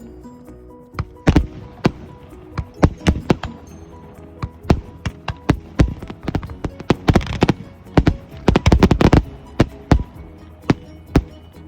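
Aerial fireworks going off: a string of sharp bangs at irregular intervals, packed into a rapid volley about seven to nine seconds in. Music plays underneath.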